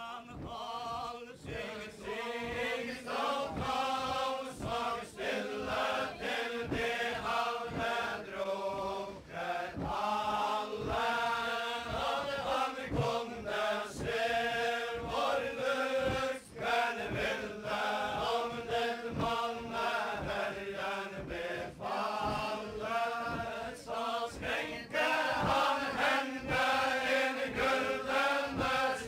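A group of voices chanting a traditional Faroese ballad in unison for the chain dance, verse after verse, over a steady beat of low thuds from the dancers' stamping feet.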